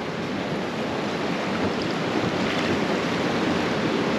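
Steady rushing and splashing of water at the side of the boat, growing slightly louder, as a hooked king salmon is played toward the net.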